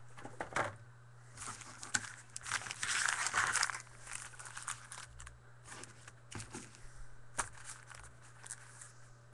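Plastic wrapping crinkling and tearing as a box of baseball card packs is handled and opened, loudest around three seconds in, with scattered light clicks. A steady low hum runs underneath.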